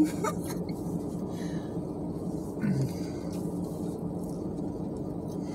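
Steady low hum of a parked car running, heard inside the cabin, with a short falling hum from a voice about halfway through and faint eating sounds.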